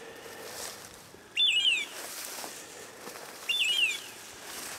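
Bird dog's beeper collar sounding in point mode: a short chirping call of quick falling glides, repeated at an even pace about every two seconds, the signal that the Brittany spaniel is standing on point.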